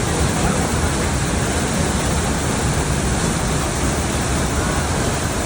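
Small waterfall on the Godavari River, water falling with a steady, loud rushing.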